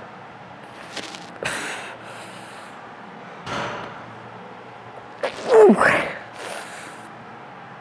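A woman breathing hard from exertion during an ab workout: a few heavy exhales and one loud strained groan, falling then rising in pitch, about five and a half seconds in.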